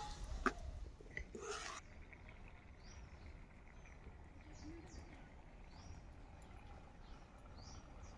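A metal spatula knocks and scrapes in a curry pot in the first couple of seconds, then faint birds give short high chirps, one every second or so, over a low outdoor rumble.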